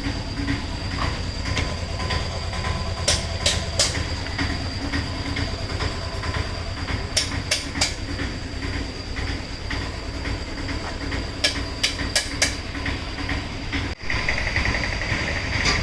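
Steady workshop background noise, a low rumble with a faint high whine, broken every few seconds by groups of two to four sharp clicks or taps. The sound cuts briefly about fourteen seconds in, and a different, hissier background follows.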